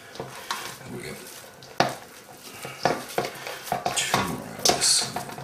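Hands scooping and pressing raw minced beef in a stainless steel mixing bowl: soft handling noise with irregular knocks of hands and meat against the metal bowl, a sharp one about two seconds in.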